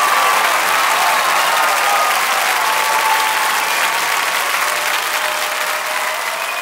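Theatre audience applauding, a dense steady clapping that slowly gets quieter.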